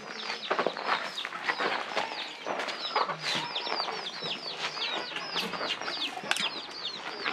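Chickens calling in the yard: a steady run of short, high chirps, several a second.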